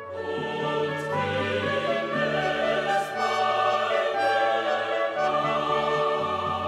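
Orchestral music with choral singing over sustained low notes, with two crashes about one and three seconds in.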